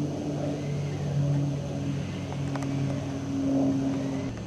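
A steady engine drone with a constant low hum and its overtones, which drops to a lower pitch shortly before the end.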